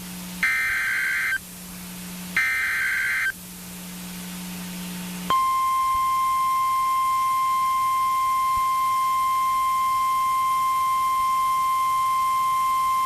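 NOAA Weather Radio emergency alert signal: the last two of three SAME digital header bursts, each a harsh data screech about a second long, then after a two-second gap the steady 1050 Hz warning alarm tone starts about five seconds in and holds. The alarm tone marks a severe thunderstorm warning about to be broadcast.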